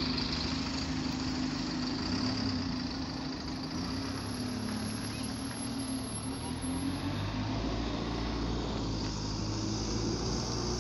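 Single-decker bus engine running steadily, mixed with street traffic; a deeper low rumble joins about two-thirds of the way through.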